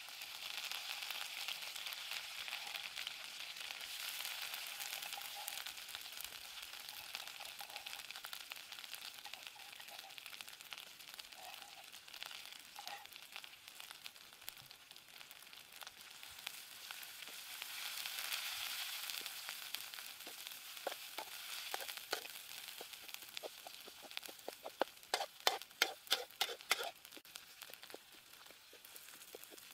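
Spice paste frying and sizzling in hot oil in a steel wok, the sizzle jumping up at once as the paste goes in and swelling again later. Near the end a wooden spatula stirs it, scraping and knocking against the wok in a quick run of sharp clicks.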